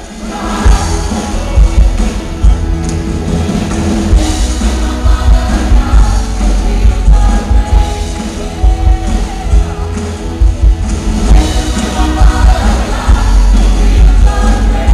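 Choir singing an upbeat song with band accompaniment, with heavy bass and a steady beat, loud on the recording; the music starts up in full at the beginning.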